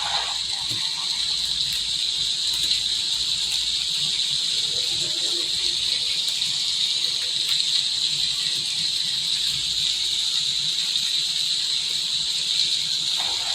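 Background recording of steady rain falling, with crickets chirring in a high, even band.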